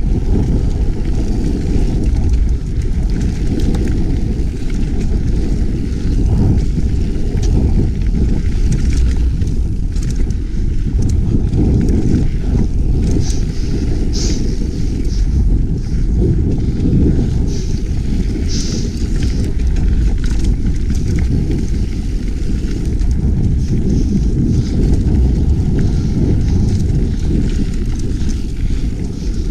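Mountain bike riding down forest singletrack: a steady low rumble of tyres and wind on the microphone, with scattered rattles and clicks from the bike over the rough ground.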